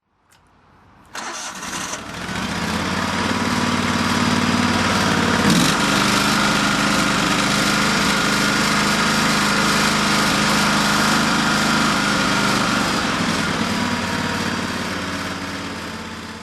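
Terramite T5C backhoe loader's engine starting about a second in, then running steadily. A higher steady whine rides over it for several seconds in the middle, and the sound fades toward the end.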